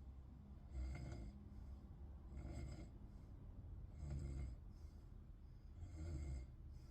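A sleeper snoring in a slow, even rhythm: four snores, one about every one and a half to two seconds.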